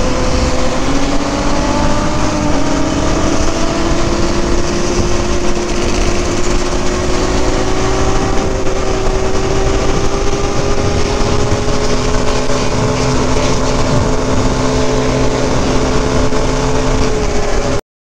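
Motorcycle engine running under way with wind noise on the camera, its pitch climbing slowly as the bike gathers speed in one gear. The sound cuts off suddenly near the end.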